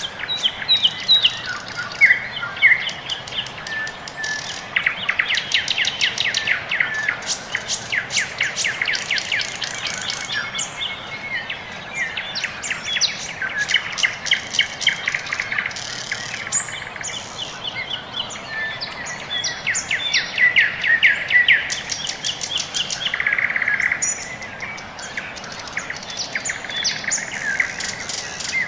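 Small birds chirping and singing throughout, together with runs of rapid clicking from a wire whisk beating batter in a glass bowl.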